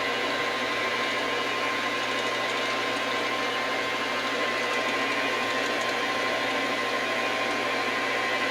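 Metal lathe running steadily with a constant whine, taking a light cut of about a thousandth of an inch on a steel vise handle.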